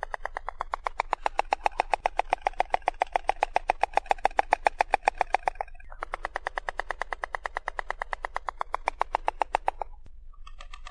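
Stork bill-clattering: rapid clacks, about ten a second, in long bouts, with a short break about six seconds in and another near the end before a new bout starts.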